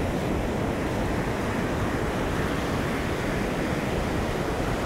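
Surf breaking and washing up the beach in a steady rush, with wind on the microphone.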